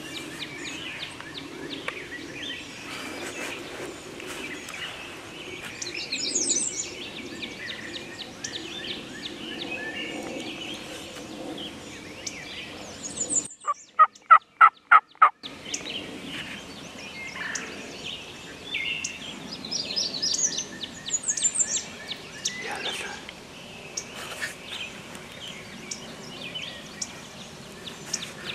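Turkey calls: a loud series of about eight evenly spaced notes about halfway through, with fainter turkey calls at other moments. Songbirds chirp and sing throughout.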